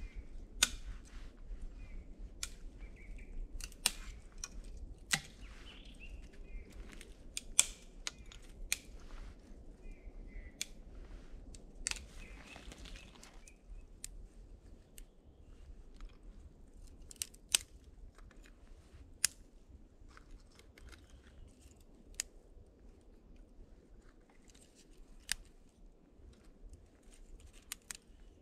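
Thin dry twigs snapping by hand in sharp, irregular cracks and clicks, some in quick clusters.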